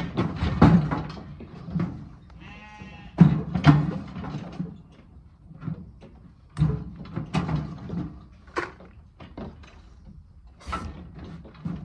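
Lambs in a sheep handling race, one bleating clearly about two and a half seconds in, amid repeated metallic clanks and rattles from the galvanised hurdles and the weigh crate's gates as the lambs are moved through and weighed.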